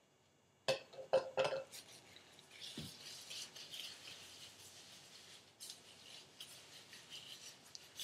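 Aphogee protein treatment bubbling and crackling like soap suds as gloved fingers work it through the hair, a fine fizzing hiss full of small ticks. A few sharp knocks come about a second in.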